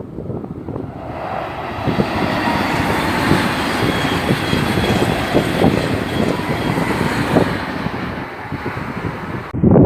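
A train passing on the line: a steady rushing rumble of wheels on rail that builds about a second in and eases over the last few seconds, with faint steady whining tones above it. Wind buffets the microphone near the end.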